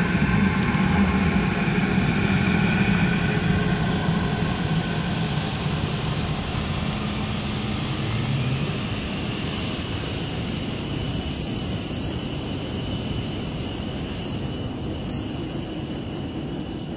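Airliner engines and airflow heard from inside the cabin during take-off and climb: a steady loud rush with engine tones that fade after about eight seconds, leaving a thinner high whine as the whole slowly gets quieter.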